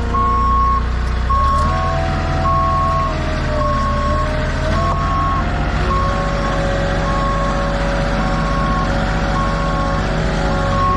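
Backup alarm of a heavy delivery vehicle beeping steadily about once a second while it reverses, over the rumble of its diesel engine, which rises and falls in speed a couple of times.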